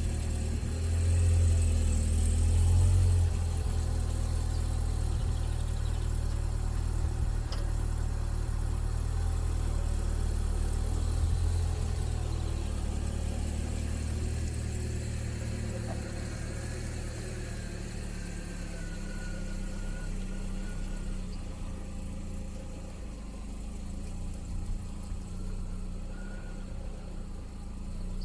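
A car engine, likely the Niva Travel's, running steadily at idle. It swells louder for a couple of seconds near the start and runs quieter in the second half.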